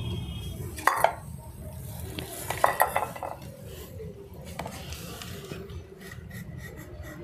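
Ginger being cut on a boti, a curved blade fixed upright on a wooden base: a few sharp knocks and clinks, then a quick run of light cutting ticks near the end.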